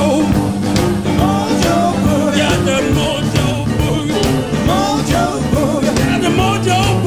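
Blues band playing an up-tempo boogie instrumental break: a steady drum beat and bass under a bending, wavering lead line.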